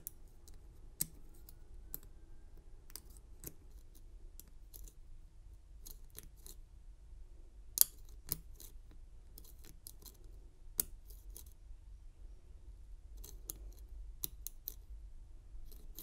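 Lock pick and tension wrench working the pin stack of an American 747 padlock: faint, irregular metallic clicks and scrapes, with a sharper click about eight seconds in and others near one and eleven seconds.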